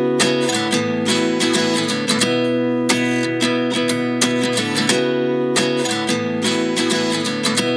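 Background music: an instrumental passage of strummed acoustic guitar with a steady rhythm.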